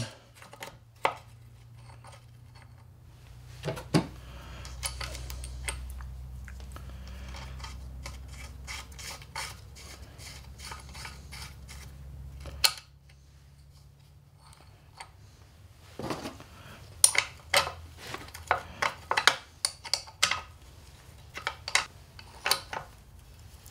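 Metal parts and hand tools clinking, tapping and scraping as the shift lever is fitted onto an NP231 transfer case, in scattered clicks that come thick in the last several seconds. A low steady hum sits underneath for several seconds and cuts off abruptly about halfway through.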